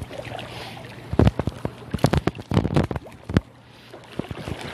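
Irregular rumbling knocks and crackles on a handheld phone's microphone, bunched through the middle, over faint water lapping against shore rocks.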